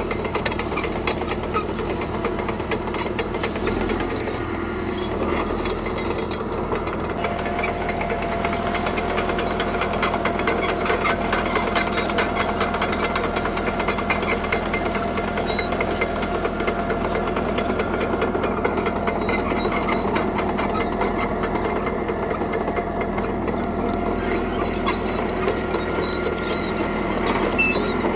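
CAT D3K crawler bulldozer running steadily under work, its diesel engine mixed with the continuous clatter and clank of its steel tracks. A steady whine joins in about seven seconds in.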